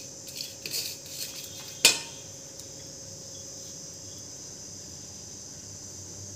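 Light clinks and taps of a kitchen utensil on a metal pressure-cooker pot, with one sharp, ringing metal knock about two seconds in. After the knock only a steady high hiss remains.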